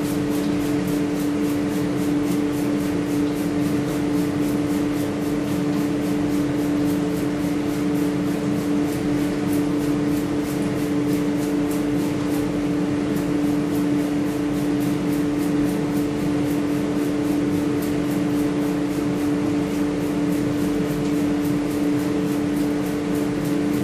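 Steady low motor hum with a haze of noise, like a running fan, and over it a quick, even hiss about three times a second as hand-trigger sprayers pump the spray-on chrome silvering solutions.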